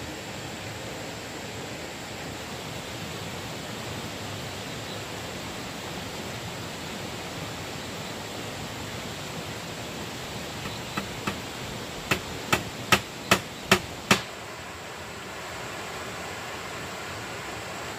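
A hammer tapping three times lightly, then striking six hard blows in quick succession, about two to three a second, as in nailing shelf boards. A steady rushing noise lies under it all.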